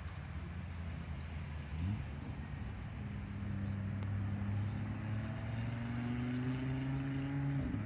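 An engine running steadily with a low hum, its pitch climbing slowly for several seconds and then dropping suddenly near the end.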